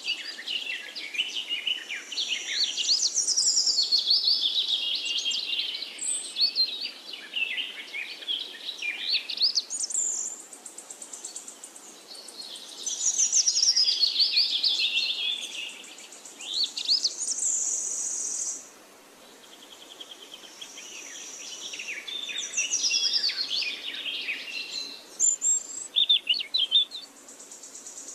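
Forest birds singing in quick, overlapping whistled and chirping phrases that come in bouts, with a steady high-pitched insect buzz coming and going behind them.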